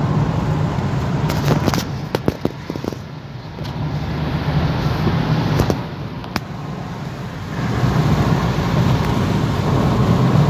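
Opel Antara on the move: steady road and tyre noise with a low hum, and a few sharp clicks about a second and a half in and again near the middle. No brake squeal or grinding is heard, a sign that the resurfaced brake discs are running clean.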